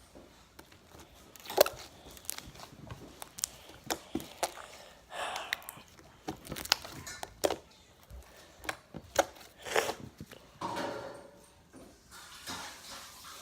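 Irregular clicks, taps and short rustles of hands handling slime and the fake-cloud stuffing pulled from a disposable diaper, with a few longer rustling stretches.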